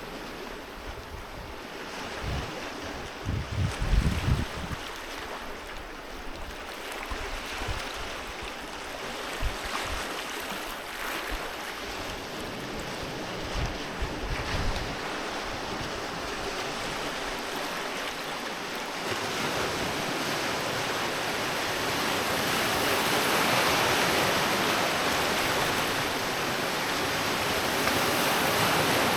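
Sea waves washing onto a beach: a steady hiss of surf that swells louder in the second half as a wave rushes in. Low rumbling gusts of wind buffet the microphone in the first half.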